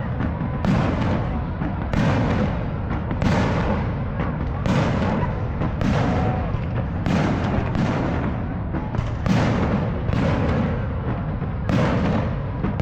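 Fireworks going off in a steady barrage, a sharp bang roughly every second or so, each trailing into a rumbling echo.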